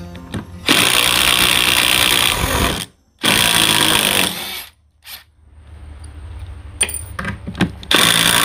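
Ridgid R87207 18V cordless impact wrench hammering in reverse, backing a wood screw out of a wooden block. It runs in three bursts, the last starting near the end, with a few clicks in between.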